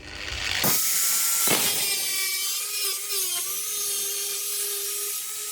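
Angle grinder cutting through the sheet-steel body panel of a Porsche 924, a loud steady high-pitched whine over a hiss of cutting. The pitch dips briefly about three seconds in as the disc is loaded.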